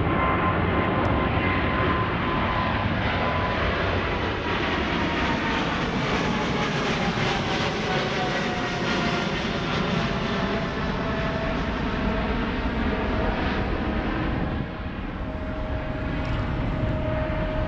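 Boeing 777-300ER's twin GE90-115B turbofans at climb thrust just after takeoff, passing overhead. A steady jet rumble with a faint whine that slowly falls in pitch as the airliner moves away.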